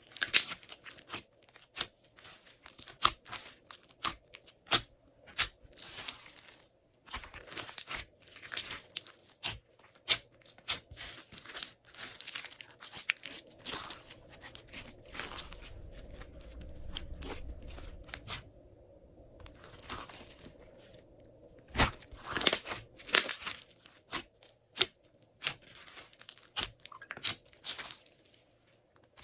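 Glossy slime being kneaded and stretched by hand, with irregular sharp pops, clicks and crackles as air pockets in the slime burst.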